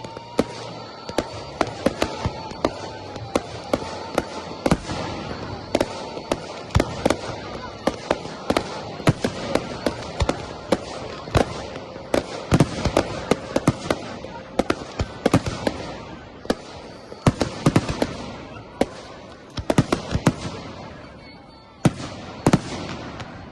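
Professional F4 fireworks display: many shells bursting in rapid, uneven succession, sharp bangs over a steady crackle. The barrage thins near the end, with one last bang shortly before it closes.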